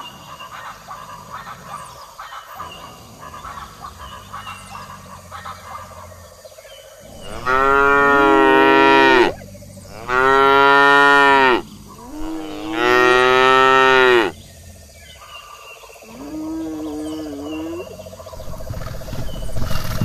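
A cow mooing three times, long drawn-out moos of about a second and a half each, close together in the middle; a fainter wavering call follows later.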